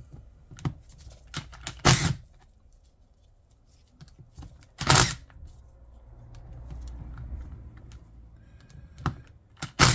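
Cordless impact driver ('Ugga Dugga') with an Allen bit breaking loose tight Allen bolts on a motorcycle final drive housing: three short, loud bursts of hammering, about 2 s in, about 5 s in and near the end, with light clicks of the bit seating between them and a softer, longer whirr in the middle.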